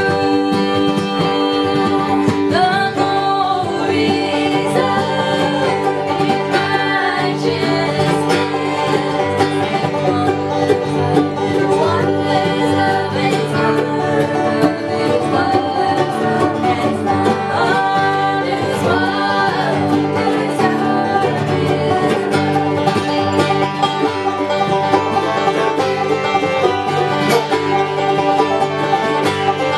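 Bluegrass-style country music with banjo and guitar picking, and singing.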